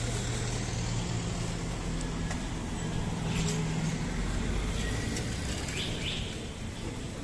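Street traffic: a nearby motor vehicle's engine runs with a steady low hum over road noise, and the hum fades after about four seconds.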